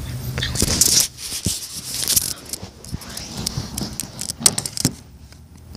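Handling noise from a phone held close to the body: irregular scraping, rubbing and sharp clicks as it is shifted against clothing and a cushion, loudest about a second in and again about four and a half seconds in.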